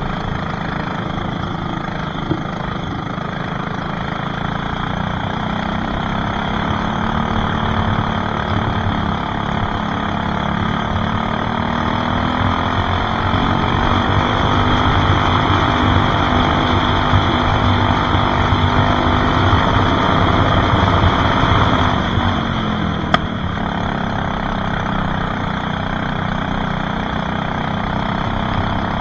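Racing kart engine heard from the driver's seat, pulling at speed with its note climbing steadily, holding high, then falling about three-quarters of the way through as the kart slows for a corner, before steadying again. A single sharp click sounds just after the drop.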